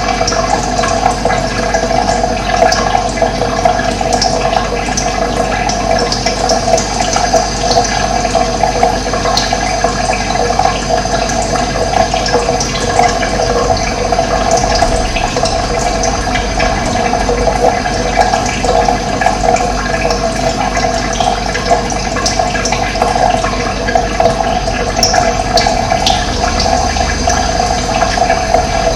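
Running water, a steady loud rush, with faint short bird chirps scattered over it.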